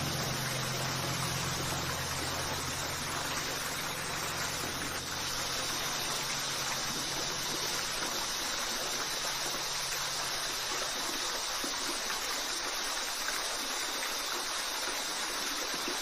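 Waterfall: a steady, even rush of falling water. A few low, held notes of background music fade out beneath it over the first ten seconds or so.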